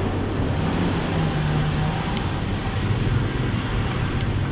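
Street traffic noise with a motorbike engine running close by, its low pitch shifting a couple of times.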